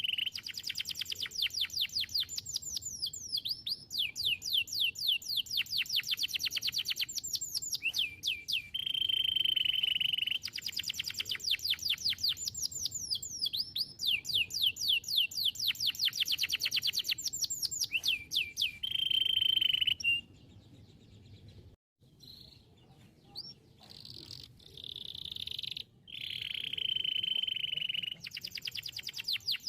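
Domestic canary singing: fast rolling trills of rapidly repeated notes alternating with held whistled notes. The song drops to a quieter, broken stretch about two-thirds of the way through, then picks up again near the end.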